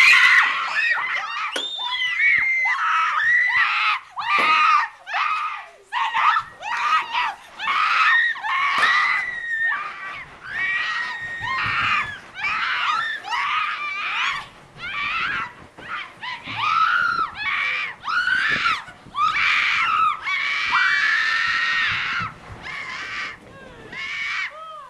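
Two young girls screaming loudly, over and over, in short high-pitched shrieks: mock panic while acting out an earthquake.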